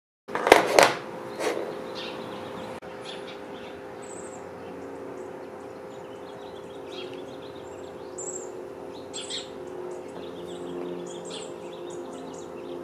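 A few sharp clicks of small metal parts being handled in the first second and a half, then small birds chirping now and then over a steady low hum.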